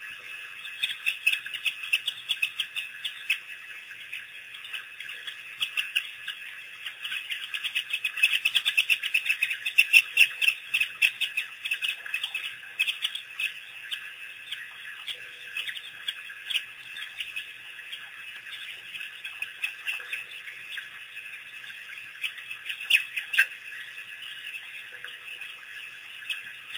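African wild dogs' high-pitched, bird-like twittering calls: a continuous chatter of rapid chirps that is densest about a third of the way in.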